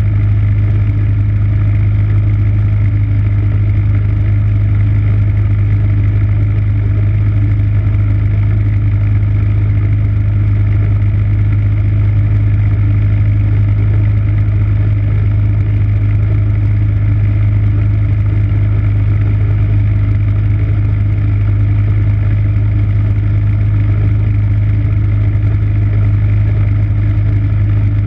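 MTD snowblower's 5 hp single-cylinder engine running steadily at an even speed, a loud unchanging hum with a strong low tone.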